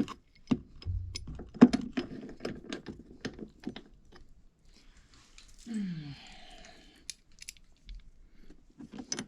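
Irregular small clicks and knocks of a Mazda Miata hardtop side striker being fitted and screwed into place by hand, with a brief scraping noise about six seconds in.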